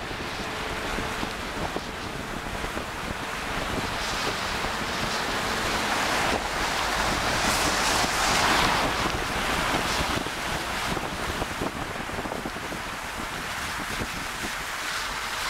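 Floodwater splashing and rushing against the front of a Toyota Land Cruiser as it drives through, with wind buffeting the microphone. The water noise swells to its loudest about halfway through, then eases.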